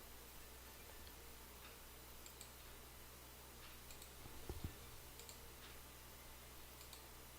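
Faint computer mouse clicks at irregular intervals, over a steady low hum, with one dull low bump about halfway through.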